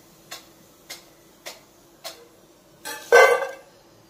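Regular clock ticking, a little under two ticks a second. About three seconds in, a loud clatter of a metal slotted spoon knocking against the steel kadai of frying oil.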